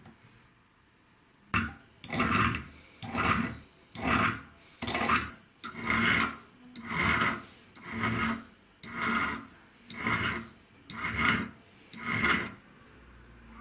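Flat metal file pushed across a metal strip clamped in a small bench vise. About eleven file strokes come at roughly one a second, starting about a second and a half in.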